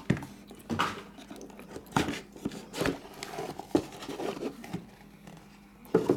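Cardboard box handling: the lid of a white trading-card box lifted and a foam-wrapped plastic card case drawn out, making a handful of short scrapes and knocks, the sharpest near the end.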